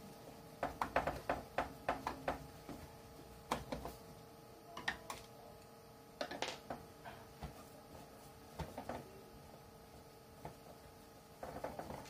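Irregular clicks and taps of a screwdriver working small screws in a shower water heater's plastic casing, coming in several short clusters.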